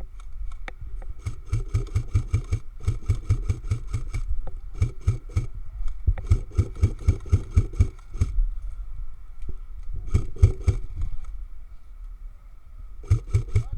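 Airsoft gun firing several quick strings of shots, about six a second, with short pauses between the strings.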